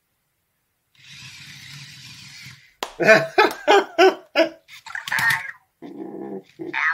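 Anki Vector robot's tread motors whirring steadily for about two seconds as it turns in place. Then comes a quick run of short, bending electronic chirps and buzzes from the robot.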